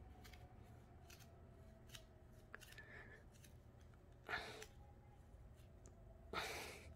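A small hand-held safety cutter's blade sawing at a braided white rope: faint ticks and scrapes, then two short rasps of the blade through the fibres, about four and six seconds in.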